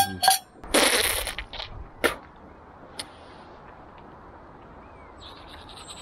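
A short rush of noise about a second in, then a low, even outdoor background; near the end a fast, steady scrubbing begins: a toothbrush brushing teeth.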